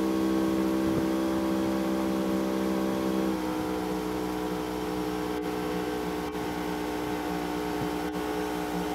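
Small engine running steadily, a low droning hum with an even note. The note shifts slightly about three seconds in.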